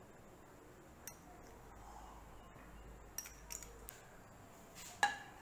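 A tablespoon of butter melting and sizzling faintly in a hot kadhai on a gas flame, with a few small crackles and clicks, the sharpest about five seconds in.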